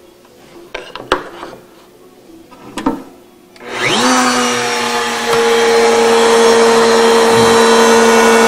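A few light knocks of wood being handled, then a table-mounted router switched on about three and a half seconds in: its motor spins up with a quick rising whine and settles into a steady high-pitched run, unloaded, before the roundover bit starts cutting.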